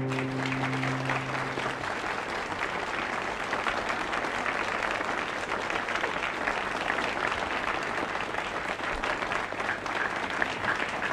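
The last held note of the song dies away about two seconds in, and a studio audience applauds steadily.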